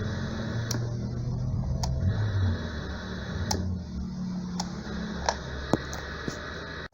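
Sound from a small black-and-white portable TV's speaker playing broadcast audio with no talk: a low, uneven rumble and hum, with scattered sharp clicks, more of them in the second half.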